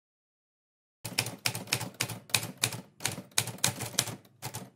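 Typewriter key strikes used as a sound effect for a caption being typed out on screen: a quick, uneven run of clacks, about four or five a second, starting about a second in.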